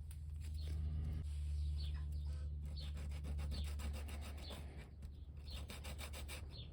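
Small plastic rod being sanded by hand, a quick series of back-and-forth scratchy strokes, to take it down until it fits as a replacement peg.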